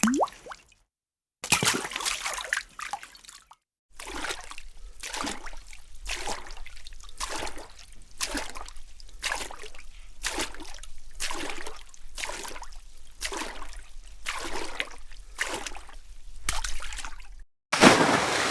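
A series of water splash sound effects: a short splash, then a second splash clip lasting about two seconds, then a long run of rhythmic sloshing splashes a little more than once a second. Near the end comes a dense rush of water.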